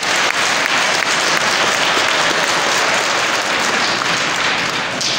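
A crowd of many people applauding, a dense steady clatter of clapping hands that starts to die away near the end.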